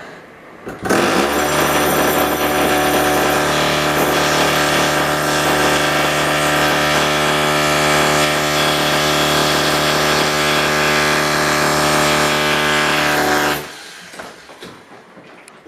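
Electric macerator toilet's pump motor running at a steady, even pitch for about twelve seconds, starting about a second in and cutting off near the end.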